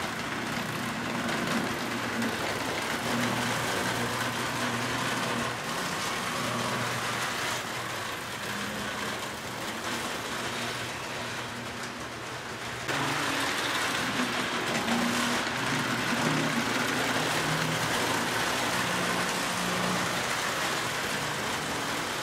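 Three-rail O-gauge model trains running: a steady rumble of wheels on the track with a low motor hum, which gets suddenly louder about thirteen seconds in.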